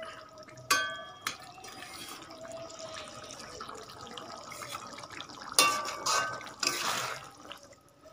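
Metal spatula in an aluminium kadai of thick curry: a single clink against the pan about a second in, then the curry simmering quietly, then two bouts of stirring and scraping through the curry a little after halfway.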